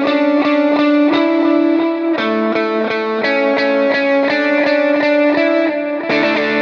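Electric guitar through a Line 6 HX Stomp/Helix preset with effects and light drive, picking a steady run of quick, evenly spaced notes over held notes that ring on.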